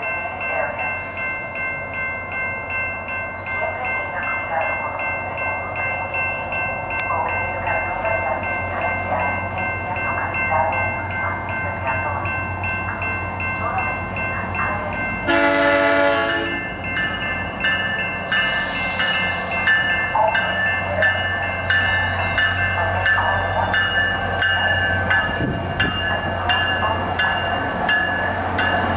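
Warning bells ringing rapidly and steadily at a rail crossing while a SunRail commuter train with Bombardier bi-level cars comes in. About halfway through the train sounds one short horn blast, a high hiss follows a few seconds later, and the low rumble of the train grows as it draws past near the end.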